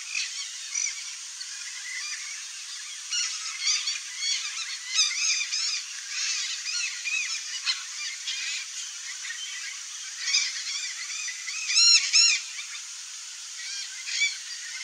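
Blue-and-yellow macaws calling: a run of short, harsh squawks and chatter, with a louder burst of several calls about twelve seconds in.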